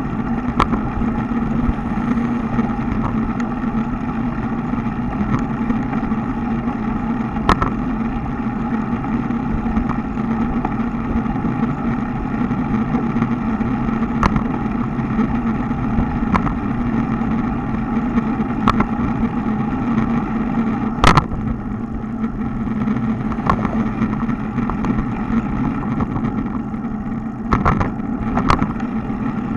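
Road bike rolling along a concrete street, heard from a bike-mounted camera: a steady hum of tyre and wind noise, broken every few seconds by short sharp knocks as the wheels cross the joints between concrete slabs. The loudest knock comes about two-thirds of the way through, and a quick pair near the end as the bike rides over a patched section of road.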